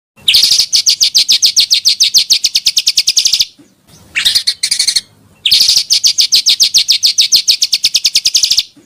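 Pancawarna bird calling in a fast trill of sharp, high chirps, many to the second: a run of about three seconds, a short run, then another run of about three seconds.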